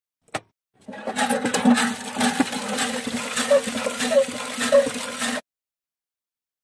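Water gushing from a miniature hand pump's spout into a small metal bucket, starting after a short click and cutting off suddenly about a second before the end.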